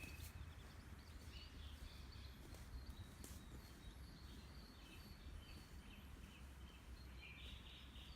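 Faint distant birdsong: scattered short chirps and calls, with a slightly louder phrase near the end, over a low steady rumble.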